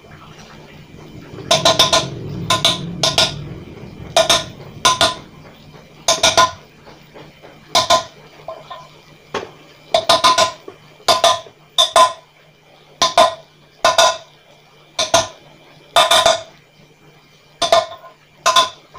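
Hammer tapping a wheel-bearing seal into the hub of a cast aluminium motorcycle rim: about twenty sharp, ringing metallic knocks, roughly one a second and sometimes in quick pairs.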